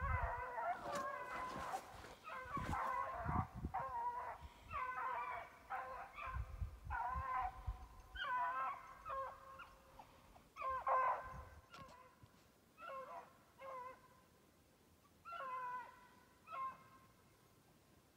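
Rabbit hounds baying as they run a rabbit's trail through the briars. Several voices overlap at first, then single drawn-out bawls come about a second apart, growing sparser and fainter toward the end.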